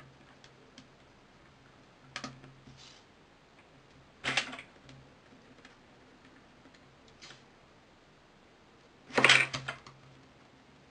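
A small screwdriver working screws into a mobile phone's plastic frame, with the parts handled: a few short clicks and rasps, loud about four seconds in and loudest about nine seconds in, over a faint low hum.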